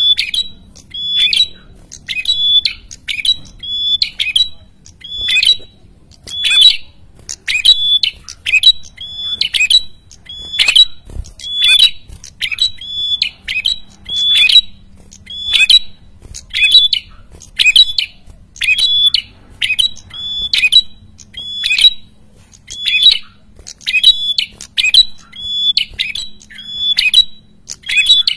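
Caged red-headed tailorbird (prenjak kepala merah) calling over and over, a short harsh call repeated steadily about every second and a bit, in the busy, noisy calling that keepers call gacor.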